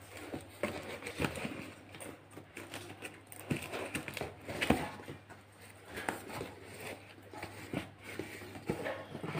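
Cardboard parcel being torn open by hand: packing tape ripping and the box flaps rustling and scraping, with irregular knocks as it is handled, the sharpest about halfway through.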